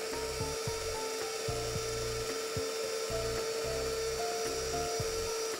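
Electric blender running steadily with a motor whine, emulsifying egg, lemon juice and oil into mayonnaise. Soft background music plays over it.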